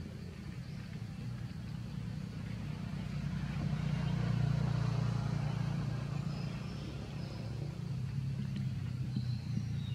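Low engine rumble of a passing motor vehicle, swelling to its loudest about halfway through and then fading.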